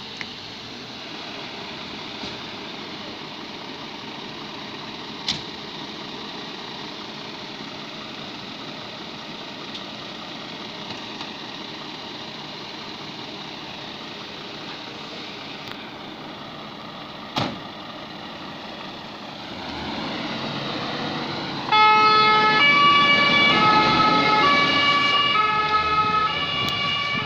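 Scania P410 fire engine's diesel running steadily, then louder as it pulls away. A little over twenty seconds in its siren switches on, stepping back and forth between two pitches, and becomes the loudest sound.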